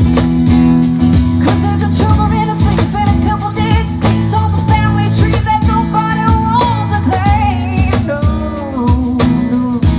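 A live band playing a song with a lead vocal: a singer carries the melody over guitar, bass and a steady drum beat, the voice coming in about a second and a half in.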